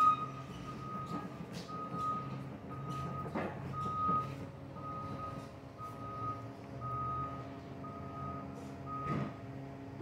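A forklift's warning beeper sounding about once a second as it manoeuvres a pallet of concrete bags, with a low steady hum beneath it.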